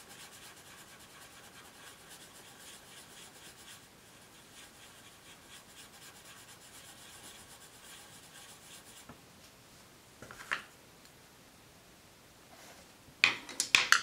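Koh-i-Noor colored pencil rubbing on paper in quick back-and-forth strokes, shading in a swatch; the faint scratching stops about nine seconds in. Then a single sharp click, and near the end a few loud sharp clicks of wooden pencils being set down and picked up on the table.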